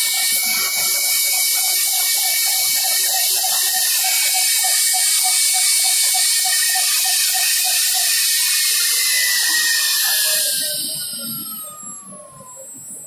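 Automatic drilling machine running, drilling holes in a metal roller-brush tube: a steady high spindle whine over loud hiss, with a rhythmic pulse about four times a second. About eight seconds in the pulsing stops and the whine falls steadily in pitch as the spindle winds down, and the sound drops away after about ten seconds.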